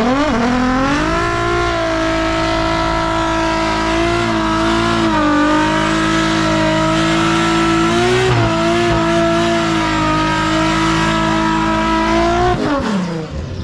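Nissan 240SX drift car doing a burnout: the turbocharged engine revs up in the first second or so, is held high and fairly steady while the rear tyres spin and squeal, then the revs drop near the end. It is a hard first test of a newly fitted OS Giken twin-disc clutch.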